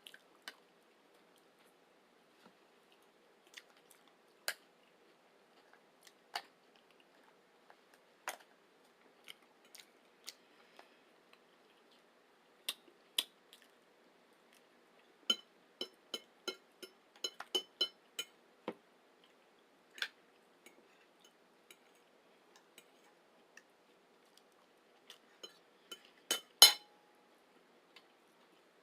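Close-miked eating sounds: scattered clicks of chewing and biting food, with a quick run of clicks a little past the middle and a sharp clink with a brief ring near the end.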